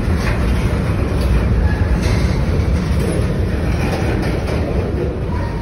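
Freight train cars rolling past close by, a covered hopper and then a flatcar of wrapped lumber: a steady heavy rumble of steel wheels on rail with a few faint brief squeals.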